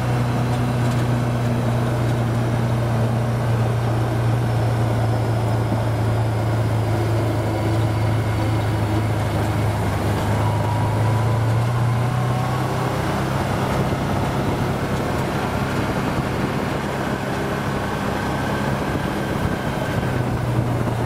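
ATV engine running steadily under way at a constant pace, with a low, even drone and tyre noise from the gravel track; a faint whine rises slightly about halfway through.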